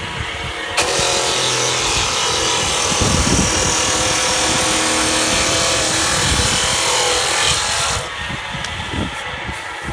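Lock-mortising drill machine cutting a lock hole in wood: a loud, harsh cutting noise starts less than a second in, runs steadily for about seven seconds, then drops back to the quieter running of the motor.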